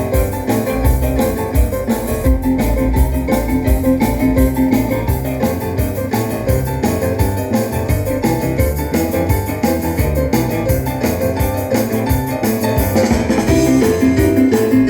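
Music with keyboard or piano and drums over a steady beat and strong deep bass, played back on a car audio system.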